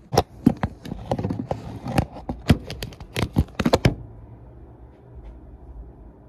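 Handling noise from the camera being picked up and repositioned: a quick, irregular run of knocks, taps and rustles for about four seconds, then a faint steady low hum.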